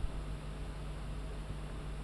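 Steady hiss and low hum of an old archival sound recording, its background noise heard in a pause between speech.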